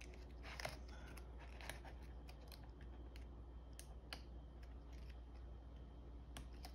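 Faint, scattered small clicks and taps of plastic laptop parts being pressed and fitted by hand as a replacement keyboard is seated in a ThinkPad P52 chassis, over a low steady hum.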